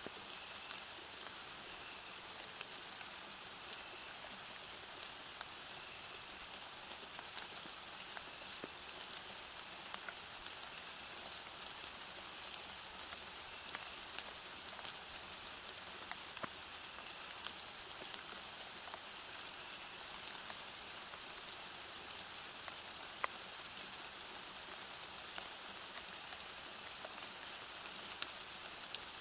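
Steady rain falling: an even hiss with many single drops ticking through it, one a little sharper about two-thirds of the way through.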